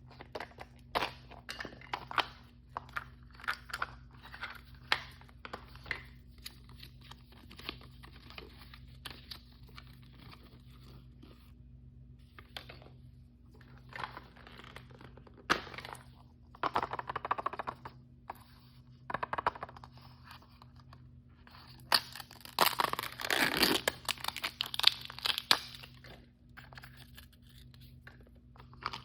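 Plastic blind-bag packaging being handled, crinkled and torn open: a run of short crinkles and taps, with a louder stretch of tearing and rustling about twenty-two seconds in.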